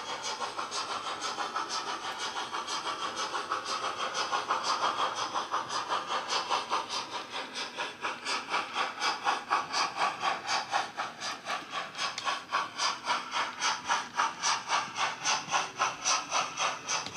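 DCC sound decoder in a model of the LNER W1 'Hush Hush' 4-6-4 steam locomotive, playing steam exhaust beats through its small onboard speaker as the model runs. The chuffs come quicker and softer at first, then slower and louder, about two a second, in the second half.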